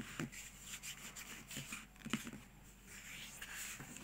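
Soft rubbing of fingers sliding along a sheet of origami paper, pressing a diagonal fold into a sharp crease against a tabletop, with a few light paper clicks.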